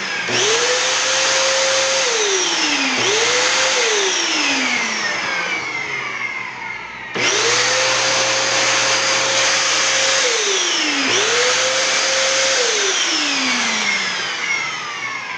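Panasonic vacuum cleaner motor switched on and off four times. Each time it spins up to a steady whine, then winds down with a falling pitch as it coasts to a stop. The motor runs again after its repair.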